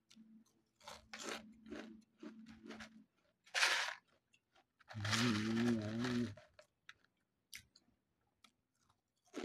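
Someone crunching and chewing seaweed-flavoured Lay's potato chips, bite after bite. There is a sharp rattle of chip crumbs in the plastic tube about three and a half seconds in, and a short hummed "mmm" around five seconds in.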